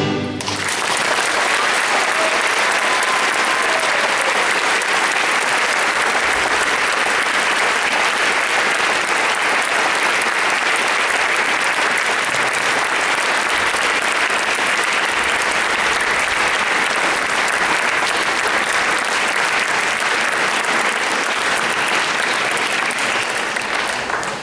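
Audience applauding steadily as the orchestral music ends, tailing off at the very end.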